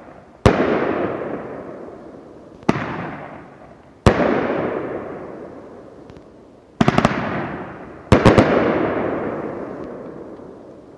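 Firehawk 'War of Willows' 500-gram fireworks cake shells firing and bursting. There are sharp bangs about half a second, three seconds and four seconds in, then two quick clusters of several bangs near seven and eight seconds, each dying away over a couple of seconds.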